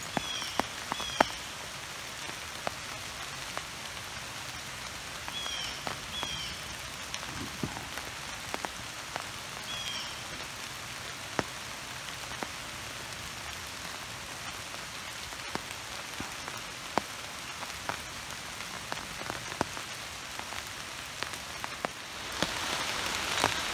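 Steady rain falling in hardwood woods, with scattered sharp drips of drops hitting close by. A few short high chirps come in the first ten seconds, and near the end the rain hiss gets louder.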